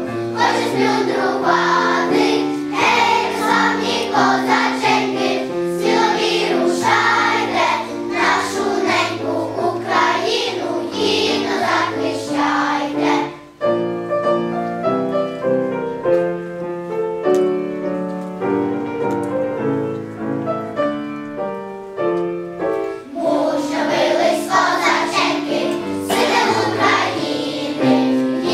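Children's choir singing a song in unison with piano accompaniment. About halfway through, the voices stop for a piano interlude of some ten seconds, and then the choir comes back in.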